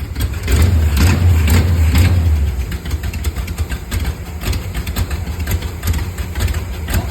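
Small-block Chevy 350 V8 running choppy, louder for about two seconds near the start and then settling back to idle, with repeated sharp ticks over the running. The tick is an unexplained noise that the owner cannot identify.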